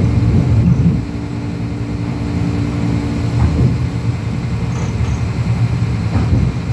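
Diesel passenger train running along the track, heard from inside the carriage: a steady low rumble of engine and wheels, with a humming tone that holds for about two seconds after the first second.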